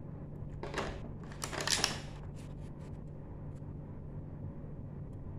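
Small hard-plastic dollhouse furniture pieces scraping and clicking as they are handled and swapped in a plastic tray: two short scraping rustles about a second in, then a few light clicks.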